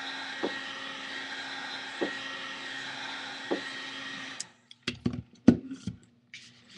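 Heat gun blowing hot air steadily onto the iPad's edge to soften the screen adhesive, with a light tick about every second and a half. It shuts off about four and a half seconds in, and a few sharp knocks and clatters follow as the gun and the metal prying tools are set down on the table.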